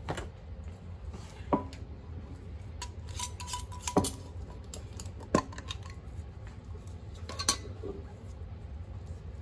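Sharp clinks and knocks of dye jars and their lids being handled on a workbench: four louder strikes a second or two apart, each with a short ring, among a few fainter taps, over a low steady hum.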